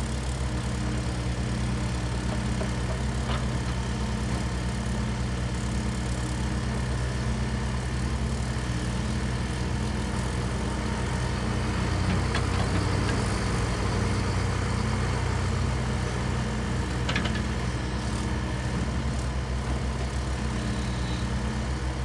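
2012 Volvo EC55C mini excavator's diesel engine idling steadily, with a few faint clicks along the way.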